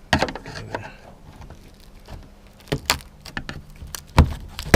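A handful of separate knocks and clanks, metal parts and tools being handled during work on the bus roof; the loudest knock comes about four seconds in.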